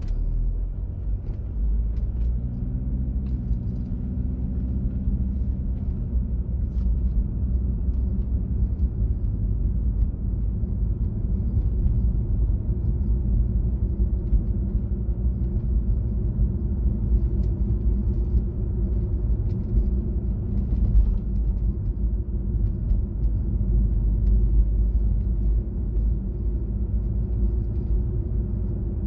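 A car driving along, with a steady low rumble of road and engine noise. A faint engine note rises a little between about two and six seconds in.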